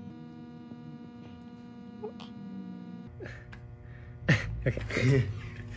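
Steady electrical mains hum with a few faint clicks; about four seconds in, a short, loud, wordless vocal sound breaks in.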